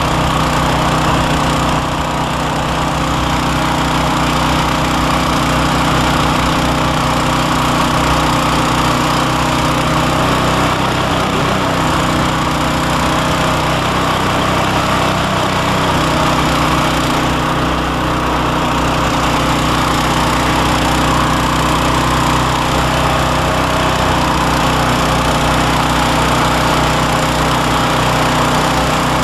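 John Deere 1032 snowblower, fitted with a 16 hp engine, running steadily under load while throwing snow out of its chute, with the rush of snow through the machine. The engine note shifts briefly around the middle.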